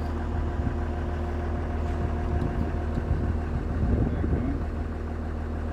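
Engine idling steadily, powering the hydraulics, with a short wavering sound and a few knocks about four seconds in.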